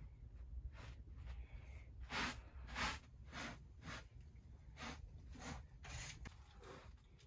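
Short hand broom sweeping a floor carpet in a string of faint, brisk swishing strokes, roughly one every half second, the strongest a couple of seconds in.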